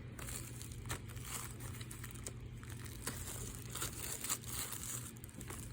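Plastic shrink wrap being torn at a slit and peeled off a 4K Blu-ray case, crinkling faintly with scattered small crackles.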